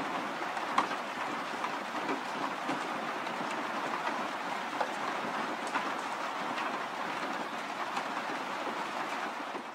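Steady rain falling, with individual drops ticking louder here and there; it starts and cuts off abruptly.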